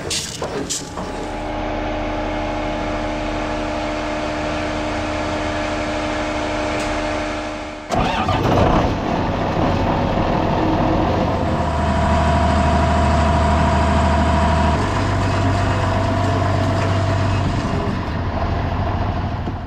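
A motor-driven machine running steadily with a hum made of several steady tones. About eight seconds in it changes abruptly to a louder, rougher machine sound, whose low hum steps up and later drops back.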